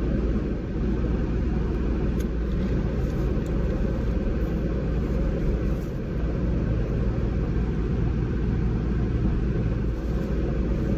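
Parked car idling with its air conditioning running: a steady low rumble under an even blower hiss.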